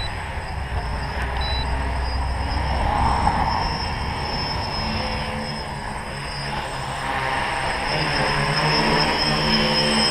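The electric motors and propellers of a small three-rotor tricopter whining in flight, with the level and pitch rising and falling as the throttle changes.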